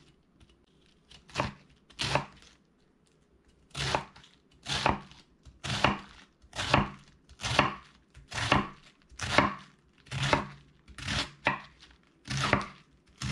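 Kitchen knife slicing a head of cabbage into shreds on a wooden cutting board: two cuts, a pause of about two seconds, then a steady run of slices a little under one a second.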